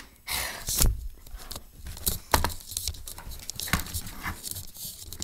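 Rustling, scraping and knocking handling noise from a phone being carried and moved about by hand, with scattered sharp clicks.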